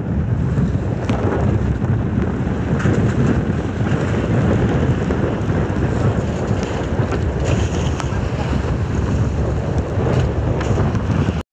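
Steady wind rumble buffeting the microphone on a boat in rough open sea, with a few faint knocks.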